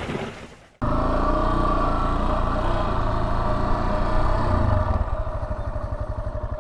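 Yamaha Serow 250's air-cooled single-cylinder engine running, settling about five seconds in into an even, pulsing idle. It comes in abruptly after a brief noisy rush fades out.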